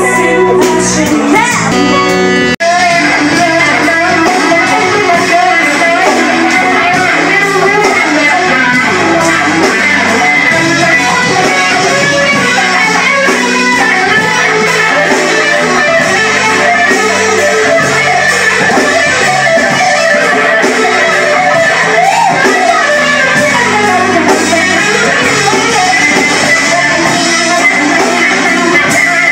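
Live band music with strummed electric guitar, loud and recorded on a mobile phone, with a momentary break about two and a half seconds in.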